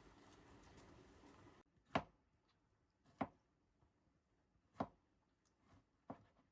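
A steady low hiss cuts off abruptly, then four sharp, separate knocks come about a second and a half apart.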